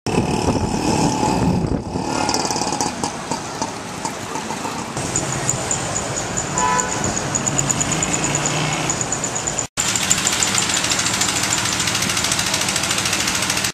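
Street traffic ambience: engines of cars and motorbikes running and passing. A short high tone sounds about seven seconds in, a fast high pulsing chirp runs through the second half, and the sound drops out for an instant near ten seconds.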